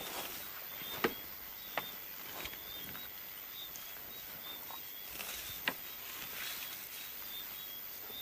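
Faint night-time bush ambience: insects chirping in short, repeated high calls over a steady hiss. Three sharp clicks stand out, the loudest about a second in, another shortly after, and a third a little past halfway.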